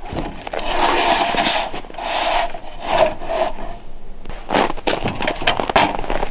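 A large thin wooden ceiling panel sliding and scraping across sawhorses in several strokes as it is laid out, then two sharp knocks in the second half as a wooden board is set down on it.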